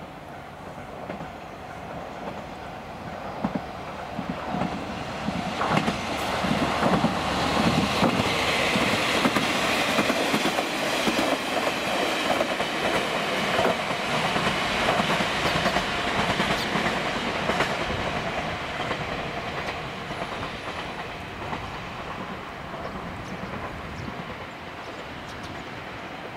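Two-car KiHa 47 diesel railcar passing: diesel engine running and wheels clacking over the rail joints, growing louder to a peak about halfway through and then fading as it moves away.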